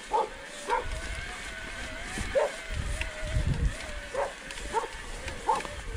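A dog barking repeatedly, about once or twice a second, over the steady, slightly wavering whine of an electric mountain bike's drive motor, with low rumbling of wind and riding noise.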